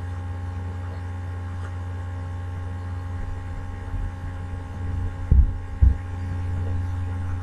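Steady low electrical mains hum on the recording, with two dull low thumps about half a second apart a little past five seconds in.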